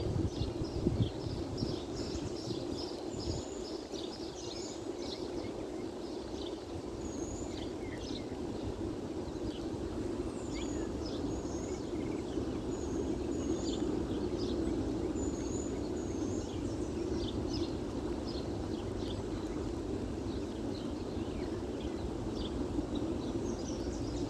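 Many small birds chirping and calling at once, a dense run of short high chirps that thins out about halfway through, over a steady low rumble.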